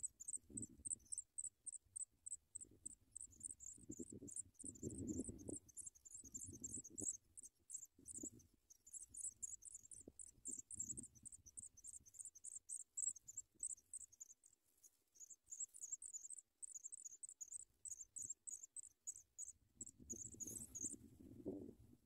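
African pipit nestlings begging: a rapid run of high, thin, repeated calls with short breaks, stopping near the end, over soft low rustles in the grass.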